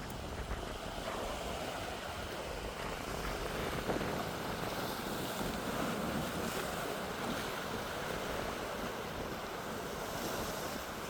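Sea surf washing steadily against the broken lava-rock shore, with wind buffeting the microphone.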